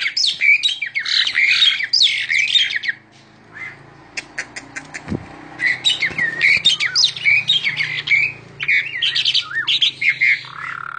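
Male Asian pied starling (jalak suren) singing a loud, varied song of quick whistles and harsh chattering notes, pausing about three seconds in and starting up again a couple of seconds later.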